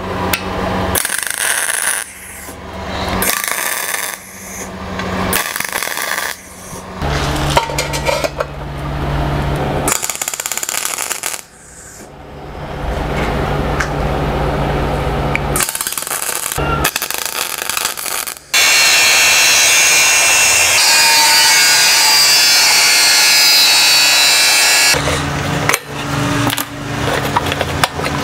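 Repeated bursts of MIG welding on the thin steel shell of a refrigerant cylinder, each starting and stopping suddenly, several over a steady hum. Past the middle comes one louder, steady, even noisy stretch of about six seconds.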